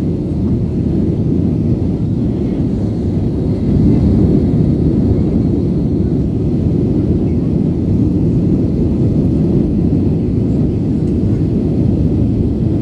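Airliner cabin noise in flight: a steady low rumble of engines and rushing air, a little louder about four seconds in.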